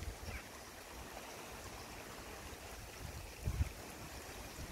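Floodwater of a swollen river, a steady rushing hiss, with wind rumbling on the microphone about three and a half seconds in.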